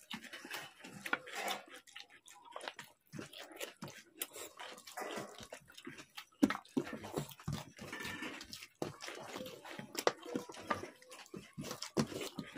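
Two people eating panta bhat (rice soaked in water) by hand from steel plates: wet squelching and slurping of the watery rice, with many short, irregular clicks and smacks.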